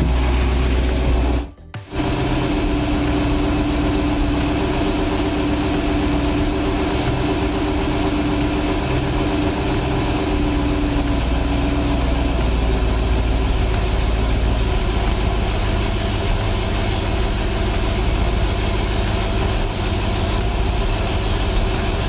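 MerCruiser 5.7L small-block Chevy V8 marine engine idling steadily while the distributor is turned to retard the ignition timing toward 10° before top dead center, the idle speed easing down from about 900 to about 800 rpm. The sound briefly cuts out about a second and a half in.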